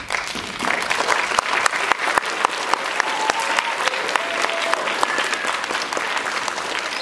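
Audience applauding: many hands clapping together, building up over the first second, then holding steady.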